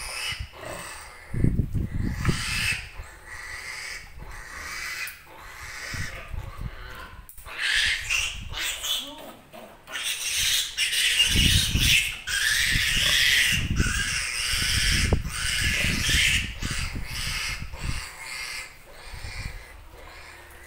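Newborn piglet squealing again and again while it is held and has its needle teeth clipped, the squeals loudest and most continuous in the second half. Deeper sounds come and go underneath.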